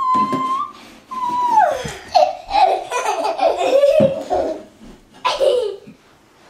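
A toddler laughing and giggling in a run of choppy bursts, after a high held vocal tone breaks off and slides downward.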